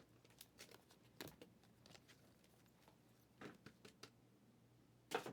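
Trading cards being handled: a few faint clicks and rustles over near silence, the loudest pair just before the end.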